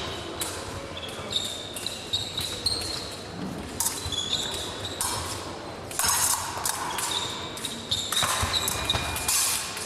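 Épée fencing bout in progress: quick footwork thumping and squeaking on the piste, with sharp clicks of blades meeting, in a large echoing hall. A louder noisy flurry comes about six seconds in and again near the end.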